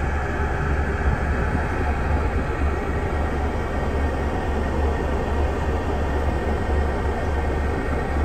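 Steady low rumble and road noise of a bus heard from inside the upper deck as it drives.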